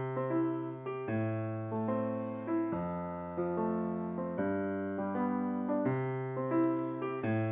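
Grand piano playing a slow sequence of held chords, one chord about every second.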